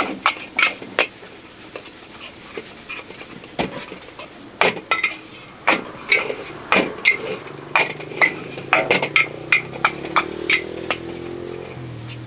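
A metal spatula clanging against a wok as mee goreng is stir-fried, in irregular ringing strikes one to three a second. Near the end a low engine hum rises underneath.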